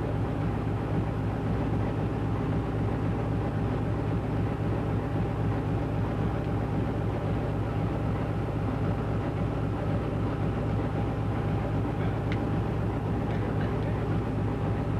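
GE U20C diesel-electric locomotive running steadily with its engine covers open: the 12-cylinder diesel and its cooling fan make a constant low drone with a steady whine on top.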